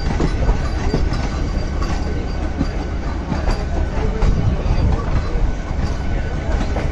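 Train running on the rails: a steady rumble with scattered clicks of wheels over rail joints.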